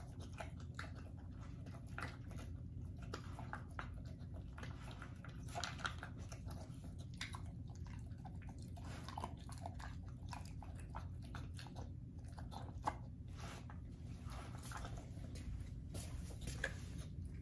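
English bull terrier eating from a steel bowl, chewing and crunching dry kibble mixed with chunks of beef liver in irregular, rapid bites.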